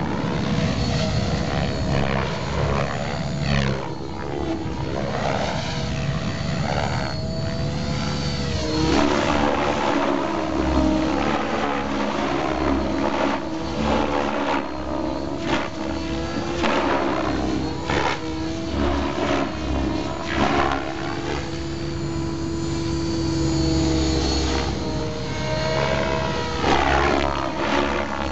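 Electric RC helicopter (Compass 7HV with a Scorpion motor and 690 mm Mavrikk Pro G5 main blades) flying aerobatics, its rotor blades and motor sweeping up and down in pitch and loudness as it manoeuvres.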